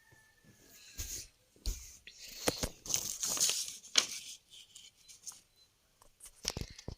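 Irregular rustling and crinkling with several sharp clicks, denser around the middle.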